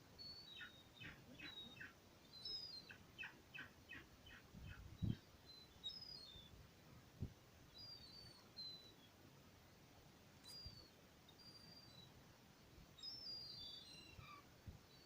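Faint birds calling at dawn: two runs of quick repeated notes, about five a second, in the first few seconds, then scattered short high chirps. Two brief low thumps about five and seven seconds in.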